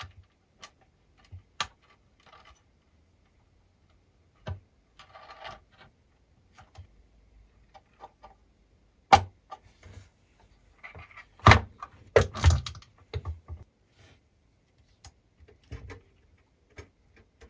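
Scattered clicks, knocks and short rustles of hands handling the spot welder's opened metal case, its circuit boards and cables. The loudest knocks come in a cluster a little past the middle.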